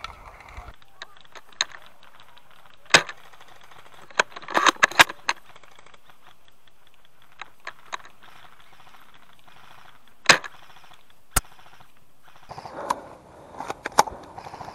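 Sharp cracks and clicks of airsoft gunfire: single shots scattered through, with a quick string of several shots about four to five seconds in. Rustling of grass and gear near the end.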